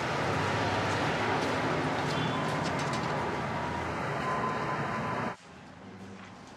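Steady city street noise with traffic running. About five seconds in it cuts off suddenly to the much quieter room tone of a restaurant interior.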